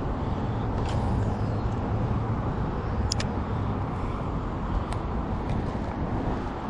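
Steady rumble of road traffic crossing a nearby highway bridge, with a few faint clicks.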